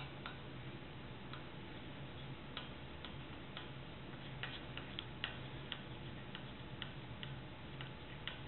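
A chalk-like marking stick tapping and scraping on a hard surface as letters are written: faint, short, irregular ticks, with a low steady hum beneath.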